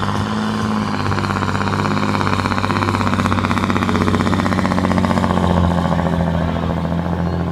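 John Deere 8530's six-cylinder turbodiesel running hard under full load as the tractor drags a pulling sled down the track. The steady engine note grows louder as it comes past, loudest about five and a half seconds in, then eases slightly.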